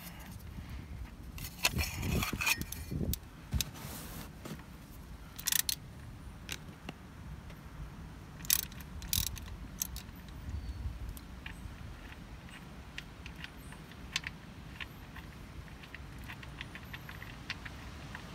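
A ratchet with a 13 mm socket clinking and knocking against the oil drain plug and oil pan, then a run of light ratchet clicks in the second half as the drain plug is loosened.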